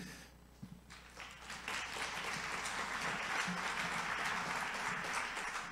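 Audience applauding, building up about a second in and dying away near the end.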